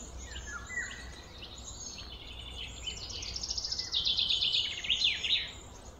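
Small birds chirping and calling, with short falling notes early on and a fast run of repeated high notes from about three seconds in, loudest near the end.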